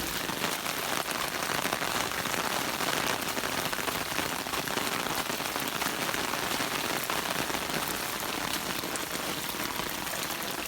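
Steady heavy rain falling, a dense hiss of drops pattering on the ground, leaves and standing floodwater.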